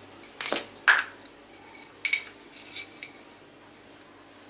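About half a dozen short clinks and taps of a spoon and a glass salt jar against the pot as salt is spooned in. The loudest comes about a second in, and a couple ring briefly.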